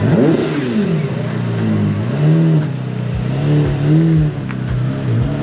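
Supercar engine revving in repeated throttle blips, its pitch rising and falling. About three seconds in, a regular low thump starts, about two a second.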